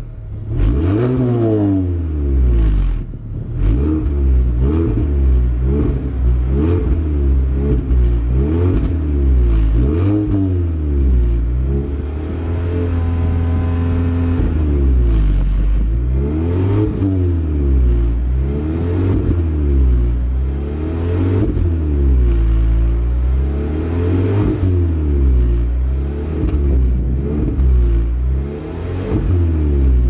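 Mazda CX-3's 2.0-litre four-cylinder petrol engine heard at the exhaust tip, blipped repeatedly while stationary. The revs rise and fall about every two seconds, and are held steady for a few seconds midway.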